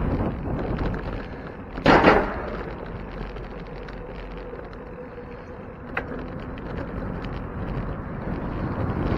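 Wind buffeting the microphone and rolling noise from a bicycle being ridden over pavement, with one loud short thump about two seconds in and a small click near six seconds.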